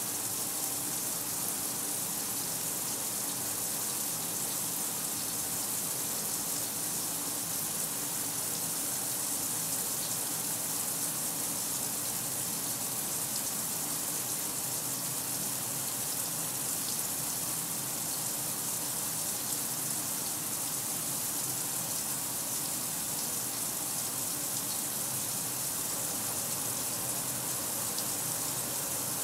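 Kenmore 800 washing machine mid-cycle, with water rushing steadily in the tub.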